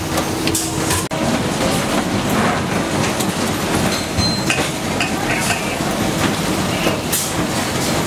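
Steady din of stator production machinery running on a factory floor, with scattered clicks and clatter. A steady hum stops abruptly at a cut about a second in.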